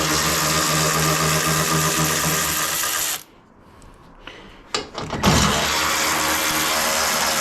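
A cordless power tool, such as a drill-driver or impact gun, runs steadily twice, for about three to four seconds each time, undoing the bolts of a van's front cross member. The two runs are separated by a short pause with a few clicks.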